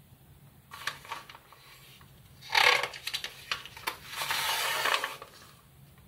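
A glossy magazine page being turned by hand: the paper crackles sharply about two and a half seconds in, then rustles for about a second as the sheet comes over and is laid flat.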